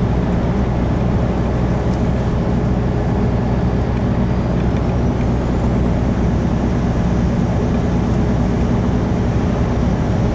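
Steady drone of a semi-truck's diesel engine and tyre-road noise heard inside the cab while cruising, with a faint high whine that rises about halfway through and then holds.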